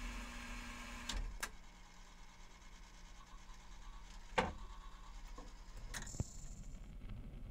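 The record-changer mechanism of an Antique Apparatus replica of a Wurlitzer 950 jukebox cycling a 45 rpm record onto the turntable. A steady motor hum runs under a pair of clicks about a second in, a louder clunk past four seconds, and two more clicks around six seconds as the record is set on the turntable and the tone arm lowered.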